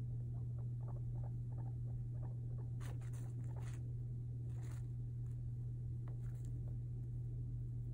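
Guinea pig pattering and rustling about its pen: a run of small light ticks, then scratchy rustles about three and again about four and a half seconds in. A steady low hum runs underneath.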